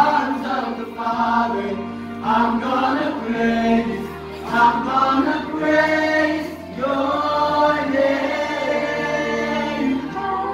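Youth choir singing a worship song in several voices, with lead singers on microphones, in sung phrases of a second or two each.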